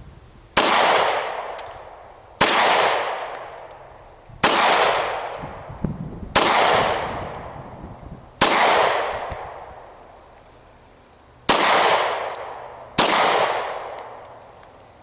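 Seven shots from a Glock 22 pistol in .40 S&W, fired one at a time about two seconds apart, with a longer pause before the last two. Each shot has a long echoing tail, and faint high ticks follow several of them. The pistol is being test-fired with a steel captive recoil rod and spring in place of the original polymer one.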